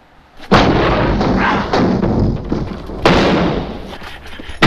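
Loud gunshots in a film soundtrack: one about half a second in, another about three seconds in, and a third right at the end. Each trails off slowly.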